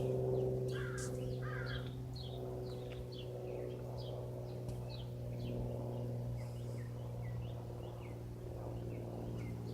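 Cessna light plane's piston engine and propeller droning overhead, a steady hum that eases off slightly over the first couple of seconds. Birds chirp repeatedly throughout.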